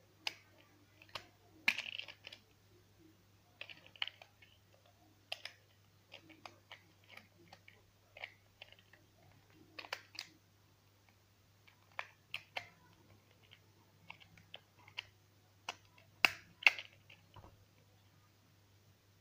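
Irregular plastic clicks and rattles of a POREE PS195 rotary electric shaver being handled while its three-blade shaving head is worked off the body, with two sharper clicks close together near the end. The shaver's motor is not running.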